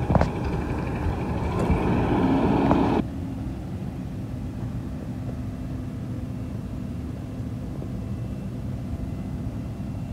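Garbage truck's engine running at raised revs with a sharp clunk near the start, then dropping suddenly to a steady low idle about three seconds in.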